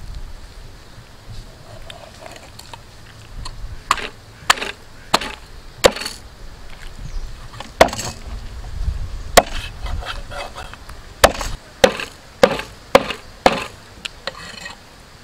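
Cleaver chopping raw chicken on a wooden stump chopping block: sharp single chops, scattered at first, then about two a second near the end.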